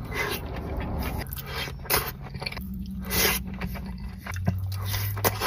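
Close-miked mukbang eating sounds: biting into and chewing a sauce-covered sushi roll, a string of short scraping and crunching noises.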